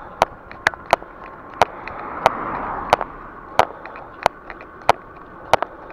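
Sharp, irregular clicks and rattles, a few a second and uneven in strength, from an e-bike being ridden over the road, over a steady hiss of riding noise that swells briefly about halfway.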